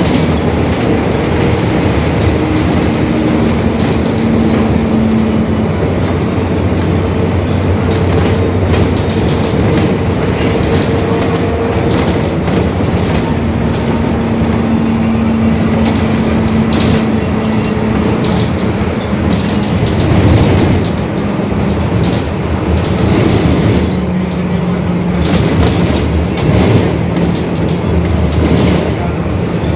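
Mercedes-Benz OF-1721 Bluetec 5 bus running under way, its engine and drivetrain making a steady rumble with a droning differential, a whine that holds a pitch for a few seconds and then steps to a new one as road speed changes. Short rattling clicks over the top.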